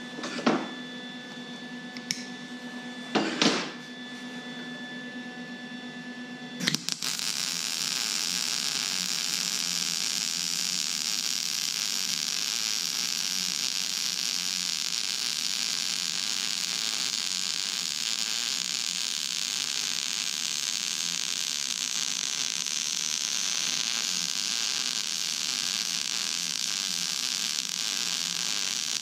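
A steady hum and a few sharp knocks, then about seven seconds in the welding arc of a Lincoln 180HD wire-feed welder strikes and runs as a steady hiss. The arc is laying the next pass over a cooled root pass on thick steel.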